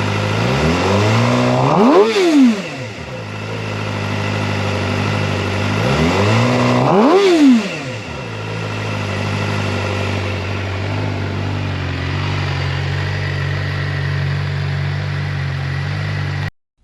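2019 Suzuki GSX-R600's inline-four engine idling and blipped twice, about two seconds in and again about seven seconds in. Each time the revs rise quickly and drop straight back to idle. The engine sound cuts off abruptly near the end.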